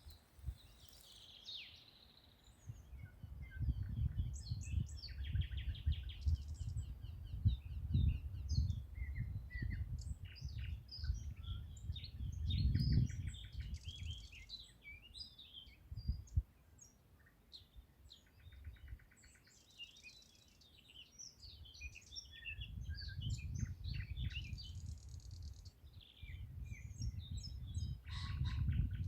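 Several songbirds singing and chirping, their short chirps and rapid trills overlapping. A low rumble swells and fades, loudest in two long stretches.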